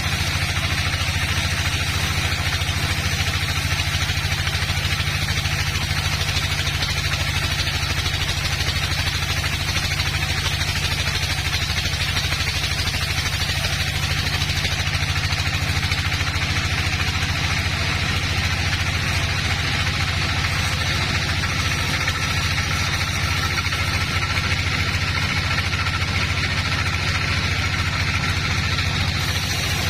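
A sawmill's engine running steadily at a constant speed, with no change in pitch or level.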